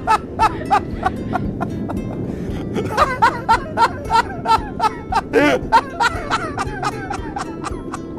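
Laughter in quick repeated bursts, about three or four a second, pausing briefly about two seconds in, over background music.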